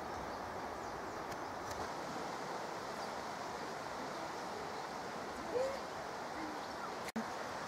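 Steady outdoor background noise, with one short bird call about five and a half seconds in. The sound drops out briefly near the end.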